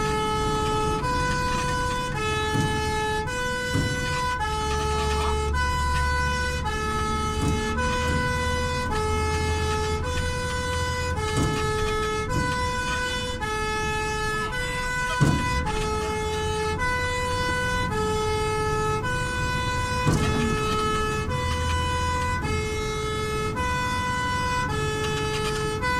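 Fire engine's two-tone siren alternating steadily between a low and a high note, each held about two-thirds of a second, over a low engine rumble that swells twice. There is a sharp knock about fifteen seconds in.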